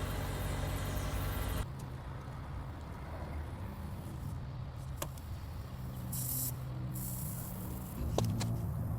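A vehicle engine idling with a steady low hum. About six seconds in there is a short burst of hiss, and a couple of faint clicks.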